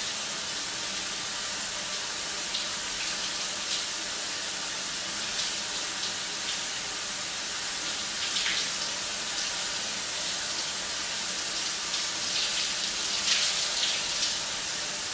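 Shower running: a steady hiss of water spraying, with a few faint brief sounds over it about eight seconds in and near the end.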